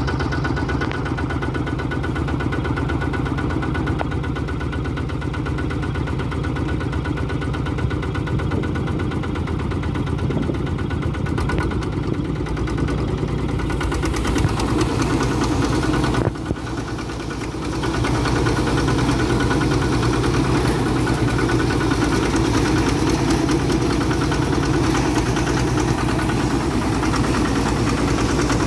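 Quick H-140R mini rice combine harvester running steadily as it works through the rice. The sound dips briefly about sixteen seconds in, then comes back louder.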